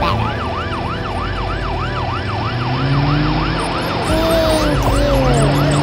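Siren sound in a fast up-and-down yelp, about four sweeps a second, over a lower steady hum whose pitch rises about three seconds in.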